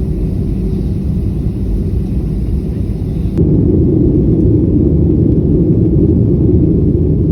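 Steady low rumble of airliner cabin noise in flight, engines and rushing air, stepping up louder about three and a half seconds in.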